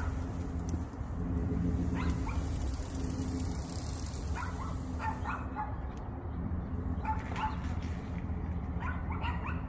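Chevrolet Silverado pickup's engine running steadily under load as it pulls an evergreen out by a tow strap. A dog barks in short pairs every two seconds or so.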